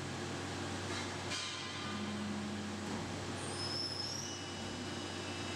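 Steady machine-shop noise from a CNC milling machine: a low running hum with faint high-pitched squeals and a short rattle about a second and a half in.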